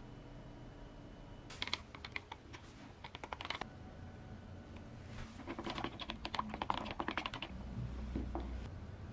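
Thin metal rod stirring epoxy resin in a clear plastic mixing cup, ticking rapidly against the cup's wall in two spells.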